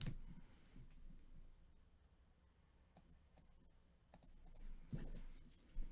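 Faint clicks and light handling noise: a sharp click at the start, a few soft ticks, and a brief rustle shortly before another click near the end.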